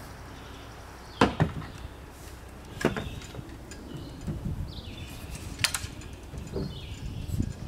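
Sharp knocks and clanks of a small trimaran's mast and rigging hardware being handled: three loud ones, about a second in, about three seconds in and just before six seconds, with softer knocks between.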